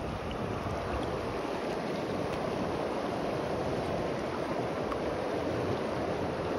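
Steady rush of river water flowing.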